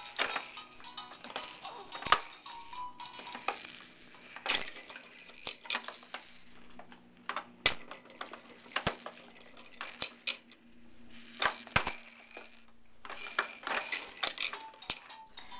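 Hard plastic clacking and rattling from a Fisher-Price rainforest activity toy on a highchair tray as a baby bats its spinner of toy birds round, in irregular clacks with several louder knocks. Short electronic melody notes from the toy sound faintly now and then.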